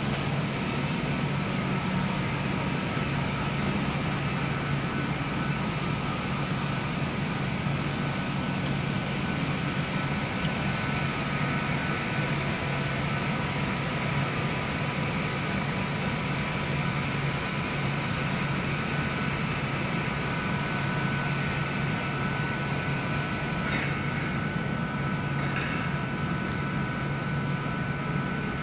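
Steady machinery drone: a low hum with a thin, even high whine above it, unchanging throughout.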